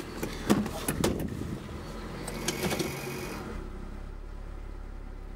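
Small four-cylinder car engine idling, running a bit irregular, with several clicks and knocks over the first three seconds or so.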